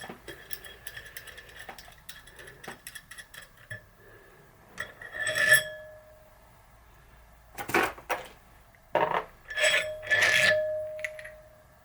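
Metal freehub body parts being taken apart and handled: light clicks and clinks, then several sharper metal knocks, a few of which ring on briefly.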